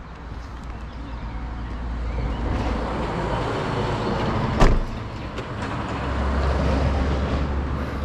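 Steady wind rumble on the microphone, with one sharp slam about four and a half seconds in: a car door being shut.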